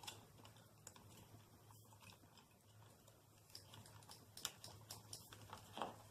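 Faint, scattered small clicks and rustles of electrical wires and plastic wire nuts being pushed up into a ceiling fan's mounting bracket, more of them in the second half.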